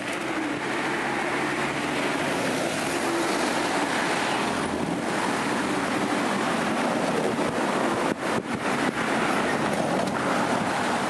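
Street traffic on a multi-lane city avenue: cars and a minibus driving past, a steady wash of engine and tyre noise.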